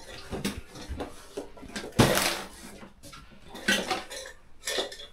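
Metal pots, dishes and utensils clattering as they are handled, with irregular knocks and clinks; the sharpest comes about two seconds in.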